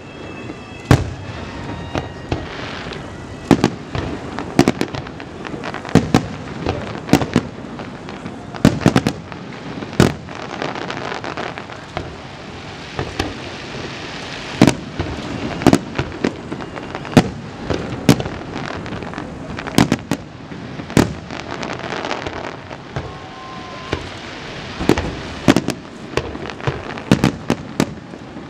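Aerial fireworks shells bursting in a long, irregular string of sharp bangs, often one or two a second, with a steady noise between the bangs.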